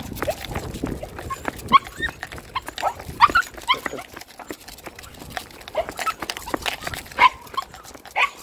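Excited Patterdale terriers whining and yelping in short high-pitched bursts as they strain on their leads, with quick clicking steps on brick paving.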